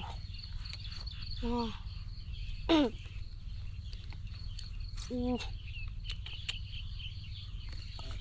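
Field insects chirring steadily, with a continuous high-pitched drone, over a low steady rumble and scattered small clicks. Three short vocal sounds break in, about a second and a half, three and five seconds in; the middle one, a falling call, is the loudest.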